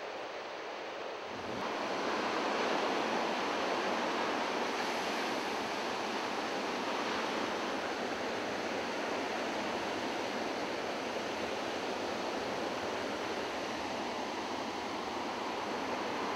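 Ocean surf: breaking waves and whitewater in a steady rushing wash, growing louder about a second and a half in.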